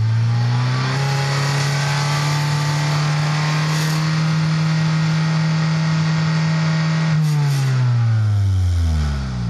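First-generation Toyota Vitz RS Turbo's engine revved up to about 5,000 rpm and held there steadily, then dropping back toward idle about seven seconds in. It is running through an exhaust with a shortened home-made straight-pipe adaptor in place of the inner silencer. It is loud: metered at 100.5 dB, over the legal noise limit.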